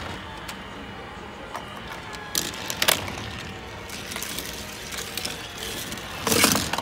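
Hot Wheels Super Ultimate Garage playset running: a diecast toy car carried up the spiral lift and rolling down the plastic track, with a few sharp plastic clatters, the loudest near the end.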